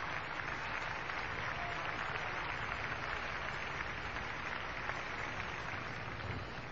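Large arena audience applauding steadily, easing off slightly near the end.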